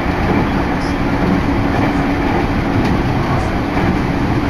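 Running noise inside a moving electric commuter train car: a steady rumble of wheels on rail with a faint steady hum.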